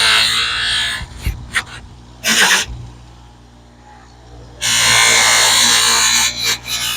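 Electric buffing wheel spinning with a steady motor hum, while a chromed motorcycle foot-control lever is pressed against it in bursts to polish off surface rust, making a harsh rushing grind. The bursts come at the start for about a second, briefly about two and a half seconds in, and again for about two seconds past the middle.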